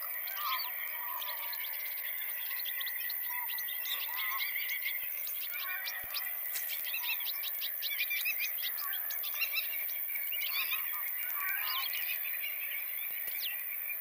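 A flock of European goldfinches twittering: a dense, continuous run of quick, high chirps and trills over a steady lower-pitched background.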